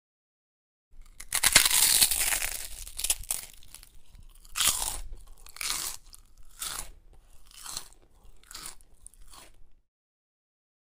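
Crisp vegetables crunching: one long, loud crunch, then a run of single crunches about once a second that fade, before the sound cuts off suddenly.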